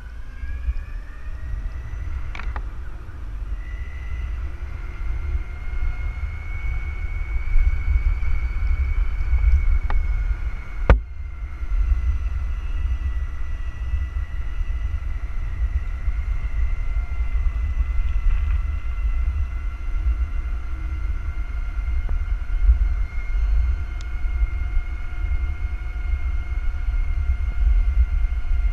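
Electric motor of an Outrider Horizon 220H electric handcycle whining as it gathers speed over the first few seconds, then holding a steady high whine while riding, over a constant low wind and road rumble on the mounted camera's microphone. A single sharp knock about eleven seconds in.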